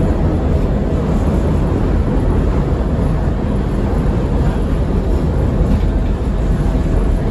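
CTA Blue Line 2600-series rapid transit car running along the track, heard from inside the car as a loud, steady rolling noise.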